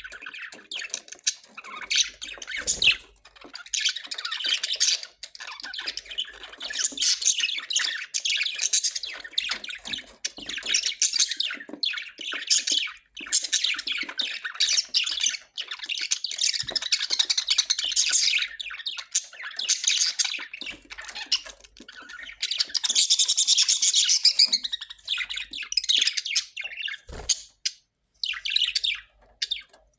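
A group of Australian parrots chattering and squawking, many short calls overlapping almost without a break, with a few brief lulls.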